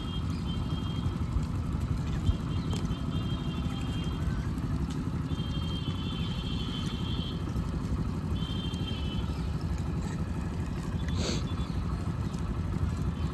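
A motorcycle engine idling steadily as a low, even rumble, with faint high-pitched chirps now and then.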